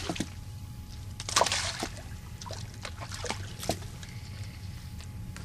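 Water splashing and sloshing in short bursts, the loudest about a second and a half in, over a steady low hum.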